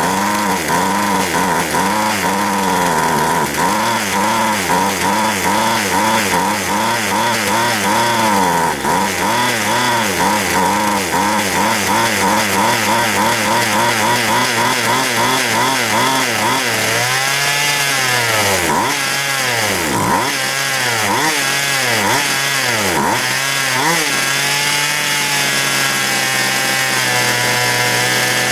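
McCulloch Mac 441 chainsaw's two-stroke engine running on its own, its pitch rising and falling about twice a second, then swinging more widely. Near the end it holds a steady high rev. It is stuck revving high and won't come down to idle.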